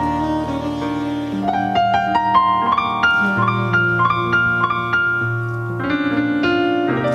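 Electric piano playing a smooth-jazz passage: a melody of single notes climbing over held chords and low bass notes.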